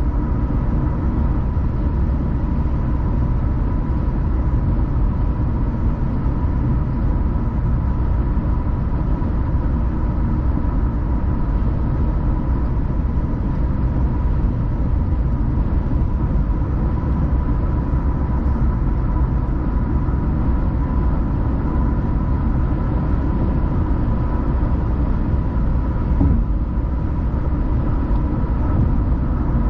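A car driving steadily at road speed: a continuous low rumble of road and engine noise with a faint steady whine above it.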